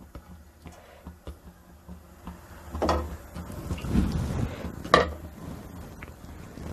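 Kitchen handling sounds as oil heats in an aluminium kadai on a gas stove: small clicks and two short knocks with a brief ring, about three and five seconds in, over a low steady hum.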